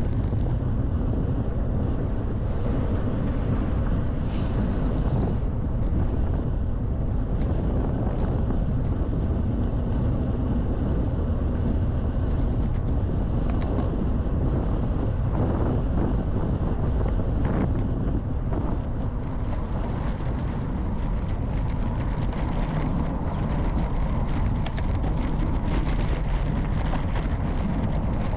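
Steady wind rush buffeting a handlebar-mounted GoPro's microphone as a bicycle is ridden along a road. A few short, high chirps sound about five seconds in.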